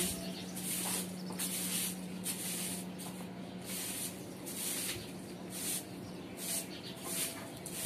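Soft grass broom sweeping a rough concrete floor: repeated hissing swishes of the bristles, about two strokes a second.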